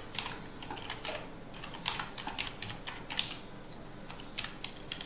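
Typing on a computer keyboard: irregular key clicks, a few a second, with one sharper click about two seconds in.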